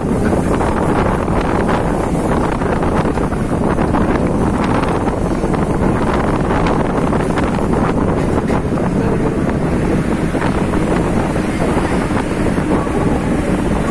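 Wind buffeting the microphone over the steady running rumble of a Mumbai suburban electric local train, heard from its open doorway while the train moves.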